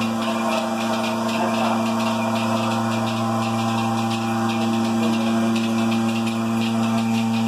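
Bucket milking machine running: a steady vacuum-pump hum, with the pulsators' fast, even rhythm of hissing clicks over it.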